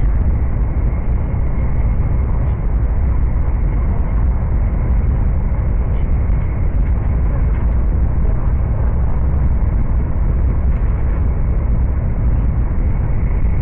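Interior running noise of an E7 series Shinkansen train, heard from inside the passenger car: a steady low rumble that does not change.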